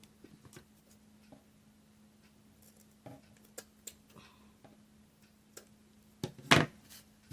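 Scissors trimming ribbon: scattered light clicks and rustles of handling, then a few sharper snips about six seconds in, the loudest sounds here, over a faint steady hum.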